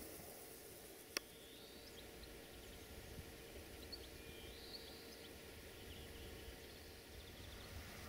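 Faint outdoor ambience with small birds chirping now and then, and a single sharp click about a second in.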